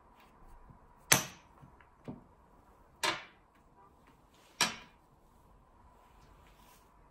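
Wooden xiangqi (Chinese chess) pieces slapped down onto a felt board over a glass tabletop as moves and a capture are made: four sharp clacks spread over about three and a half seconds, the first the loudest and the second weaker.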